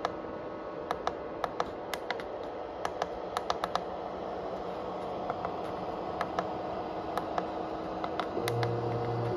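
Clicks of the push buttons on an LED moving head light's control panel, pressed again and again to scroll through its menu, over a steady hum. A short low hum sounds for about a second near the end.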